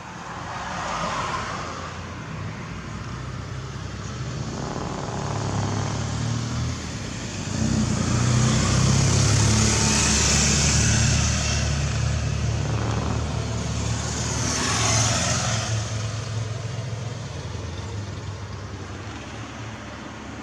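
Low, steady rumbling drone that swells about halfway through, with road vehicles swishing past about a second in, around ten seconds and around fifteen seconds.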